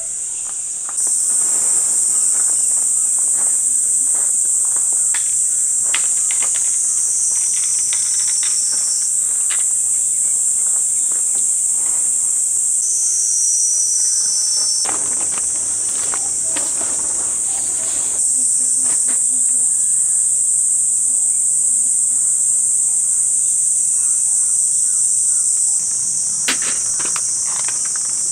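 Steady, high-pitched chorus of insects, with a few faint clicks and knocks scattered through it.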